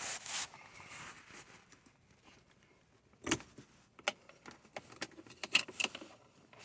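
Plastic dashboard trim being pried off with a plastic trim panel tool: scattered sharp clicks and snaps. The loudest comes about three seconds in, followed by a run of lighter clicks and rattles.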